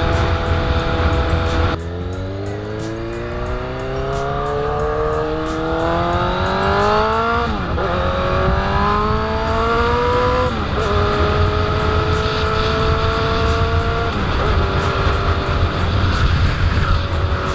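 Suzuki GSX-R750 inline-four engine under a ride, running steady, then pulling up through the revs and upshifting about seven and a half seconds in. It climbs again, shifts near ten and a half seconds, then holds steady and shifts once more near fourteen seconds. A heavy low rush of wind noise runs underneath.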